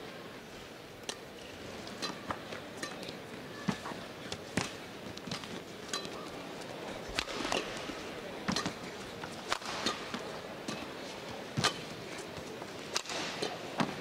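Badminton rally: sharp racket strikes on the shuttlecock trading back and forth about once a second, over a steady low crowd hum in the arena.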